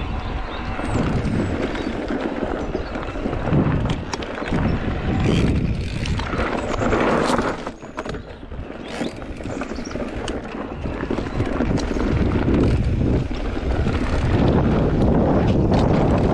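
Wind buffeting the microphone during a bicycle ride, a continuous low rumble broken by short knocks and rattles.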